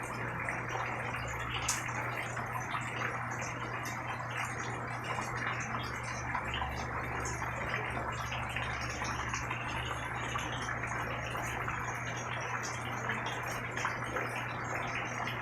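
Steady rain falling, an even hiss with scattered small drop ticks, over a low steady hum.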